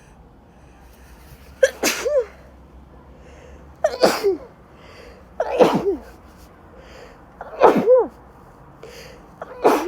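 A woman sneezing five times in a row, about every two seconds. Each sneeze is a sharp, loud burst that ends in a falling voiced tail, with faint breaths in between.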